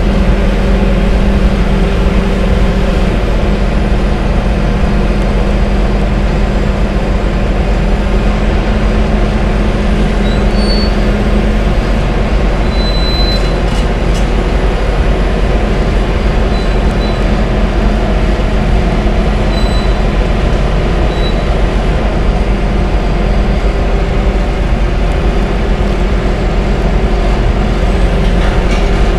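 Diesel engines of two tracked demolition excavators, one a John Deere, running steadily with an even, low drone throughout.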